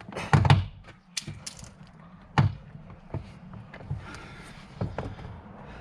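Trim tool prising at the plastic retaining clips of a Fiat 500 door card: a series of sharp plastic knocks and clicks, the loudest about half a second in and others spread through the rest.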